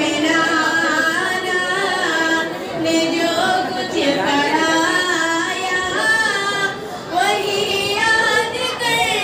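A young woman singing a naat unaccompanied into a microphone, holding long notes that waver and bend in pitch.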